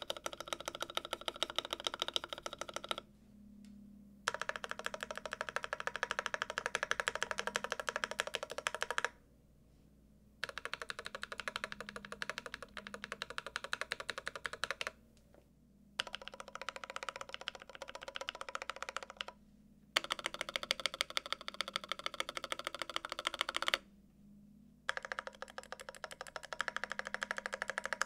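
Fast typing on a 60% mechanical keyboard: a dense clatter of keystrokes, first on thick PBT Infinikey keycaps and near the end on ABS GMK keycaps. The typing comes in six runs of four to five seconds, with pauses of about a second between them.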